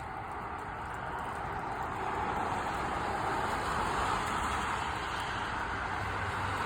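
Road traffic noise: the steady rush of passing vehicles, growing louder over the first couple of seconds and then holding steady.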